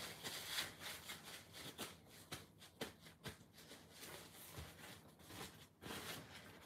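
Paper towel rustling and crinkling faintly in irregular short bursts as it is folded and pressed onto raw chicken thigh to blot it dry.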